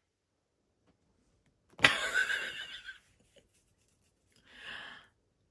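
A person's sudden, breathy, wheezing laugh bursts out about two seconds in and lasts about a second, followed by a softer breath near the end.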